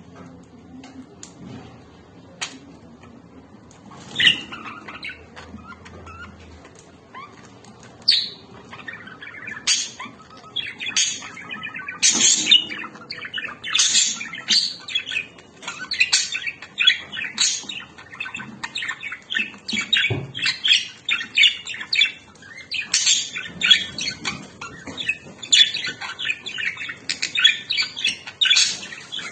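Lovebirds chirping and squawking: a few isolated calls at first, then dense, nearly continuous rapid high chattering from about eight seconds in.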